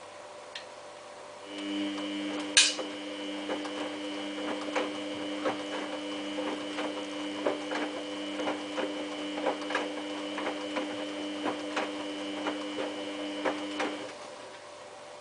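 Samsung WF8804RPA washing machine running a burst of its prewash, a steady motor whine with many small irregular ticks and knocks from the drum and the sleeping bag inside it. It starts a little way in with a sharp click and cuts off about a second before the end.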